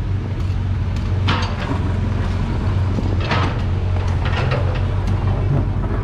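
Small single-cylinder engine of a Honda Click 110cc scooter running steadily while riding, with a low rumble of wind on the microphone and a couple of brief louder swishes about one and three seconds in.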